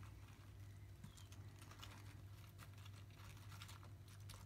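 Faint, scattered crackling and light clicks as egg-coated cabbage wedges are pressed and shifted about in a frying pan, over a steady low hum.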